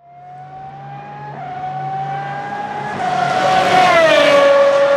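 Lola-Aston Martin B09/60 LMP1 race car's 6.0-litre V12 accelerating hard, its pitch climbing with a quick upshift about a second in and another around three seconds. It grows louder as it approaches, then drops in pitch as it passes close by about four seconds in.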